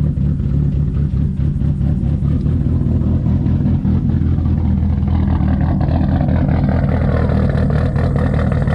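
Car engine idling steadily with a choppy, lopey idle, the kind that points to an aggressive camshaft.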